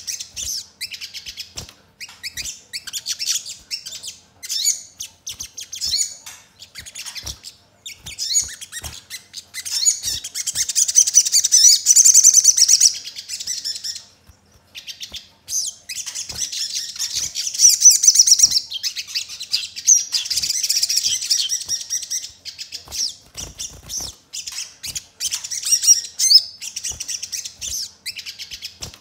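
Little spiderhunter (sogon) singing a rapid, high-pitched chattering song in bursts, with its song mixed with tree-sparrow-like chirps. Two louder, longer trilling stretches come near the middle, separated by a brief pause.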